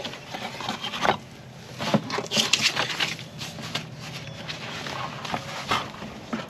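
Packaging being opened by hand: irregular rustling and scraping, busiest a couple of seconds in.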